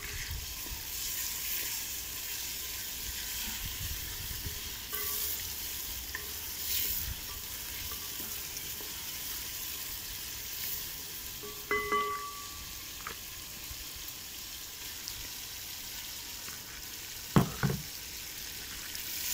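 Pieces of meat frying in hot sunflower oil in a cast-iron pot: a steady sizzle as they are stirred with a spoon. One sharp knock near the end.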